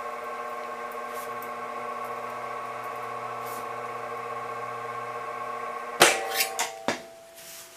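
Eastwood bead roller drive motor running steadily at half speed with a whine while the rollers form a bead in a sheet of metal. About six seconds in comes a sudden loud metallic clatter, and the motor whine fades out soon after.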